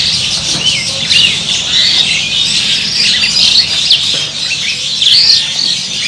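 Many caged birds chirping and squawking over one another: a dense, busy chorus of short high calls that runs on without a break.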